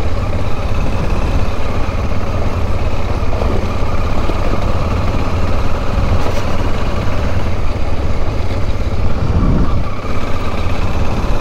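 Dual-sport motorcycle running steadily at riding speed on a gravel road, under a constant low rumble of wind and road noise at the helmet-mounted microphone.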